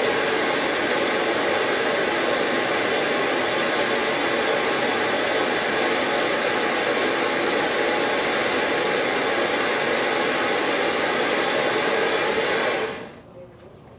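Propane hand torch flame burning with a steady hiss, which cuts off abruptly near the end.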